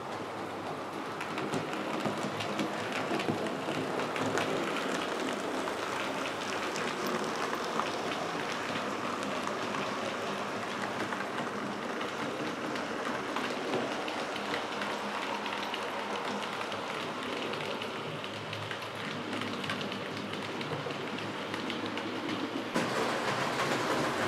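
Model train running on the track: a steady rattling whir of wheels and motor, dense with fine clicks.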